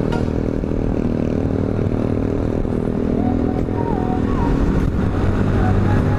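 Motor scooter engine running steadily at cruising speed, heard from the rider's seat along with the rush of the ride, with a few short higher tones about halfway through.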